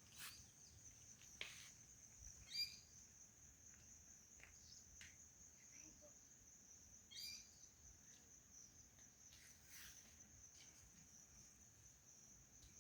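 Faint outdoor ambience: a steady high-pitched insect trill, with a bird giving a short call twice, about three and seven seconds in.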